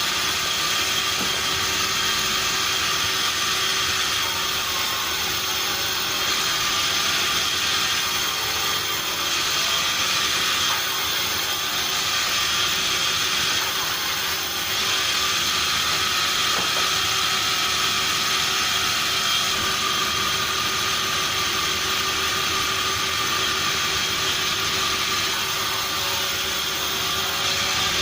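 Sawmill machinery running steadily: a continuous mechanical noise with a few constant tones over a hiss.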